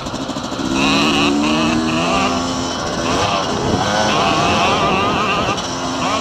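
Dirt bike engine running under way on a trail, its pitch rising and falling as the rider works the throttle and shifts.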